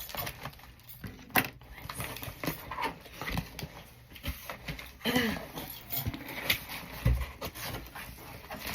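A cardboard shipping box being opened and its packaging handled: irregular scrapes, rustles and clicks, with a short wavering vocal sound about five seconds in.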